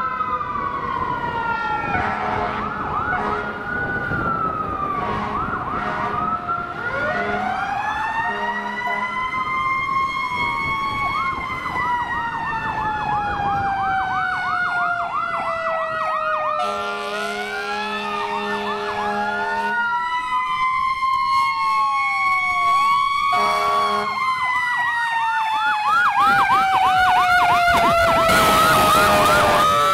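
Sirens of several fire engines sounding at once, slow wails and fast yelps overlapping and sliding in pitch. Fire engine air horns sound in runs of short blasts, and the sound gets louder near the end as a truck passes close.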